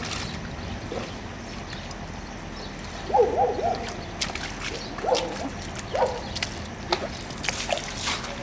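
Rubber boots splashing and sloshing through shallow muddy floodwater, with a few short chirps about three, five and six seconds in, the first the loudest.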